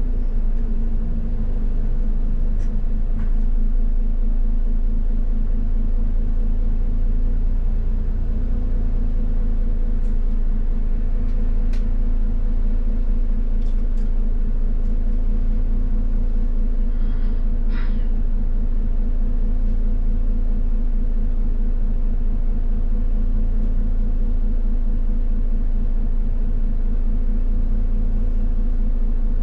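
Route bus running, heard from inside the cabin at the front: a steady low engine and road rumble with a constant hum.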